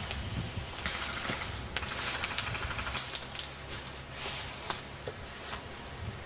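Footsteps through woodland undergrowth, with leaves and brush rustling against the body and scattered sharp snaps and clicks at irregular intervals.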